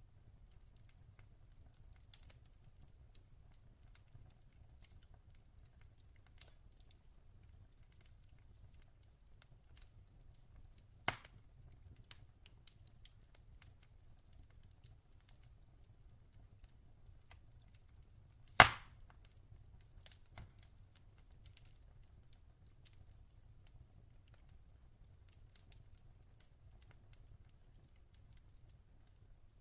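Log fire crackling softly: scattered faint ticks and two loud pops, about 11 and 19 seconds in, over a faint low rumble.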